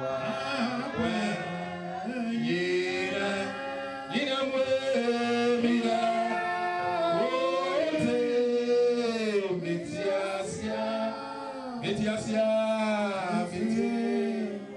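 Congregation singing a slow worship song, the voices holding long notes and gliding between them.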